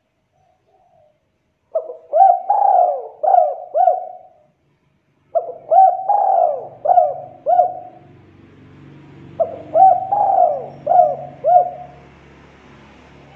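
Spotted dove cooing: three phrases a few seconds apart, each a run of four or five quick, rounded coos.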